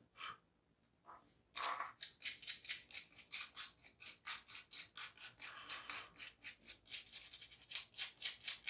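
Rapid, even scrubbing strokes, about four a second, starting about a second and a half in: cat hair and dust being cleaned off a laptop's removed cooling fan.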